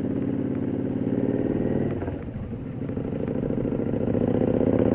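Victory Vegas Jackpot's V-twin engine running as the motorcycle is ridden. It eases off briefly about two seconds in, then pulls harder again.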